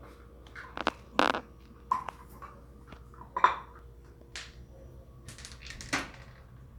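About half a dozen separate knocks and light clatters of hard objects being handled, some with a short ringing ping, over a low steady hum.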